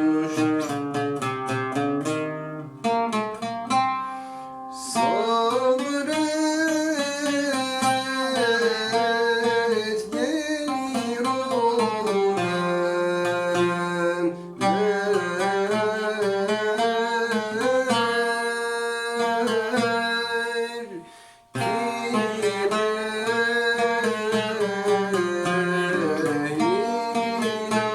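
A Turkish classical şarkı in makam uşşak, sung with a plucked string instrument accompanying. The instrument plays alone for about the first five seconds, then the voice enters with long, bending held notes, breaking off briefly a little past twenty seconds before going on.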